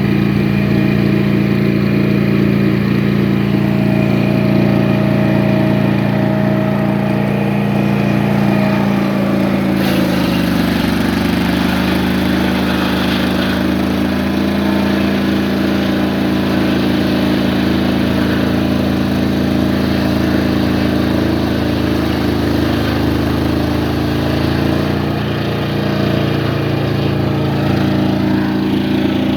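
Mighty Mite 412 circular sawmill's engine running steadily. About ten seconds in its pitch drops as it takes load and a rushing cutting noise from the saw joins it, fading out near the end as the load eases.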